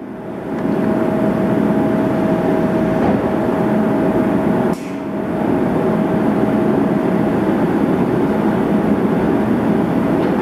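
Steady mechanical running noise in a vehicle inspection test hall, with one steady high whine held throughout and a brief dip about five seconds in.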